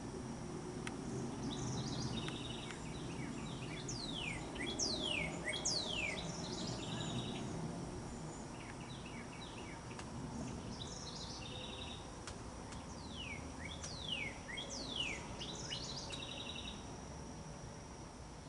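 A songbird singing two song bouts about nine seconds apart. Each bout is a run of quick falling whistles mixed with short buzzy trills.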